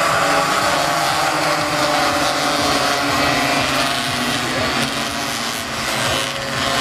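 A pack of racing motorcycles running at high revs around a circuit, several engines overlapping, their pitch rising and falling.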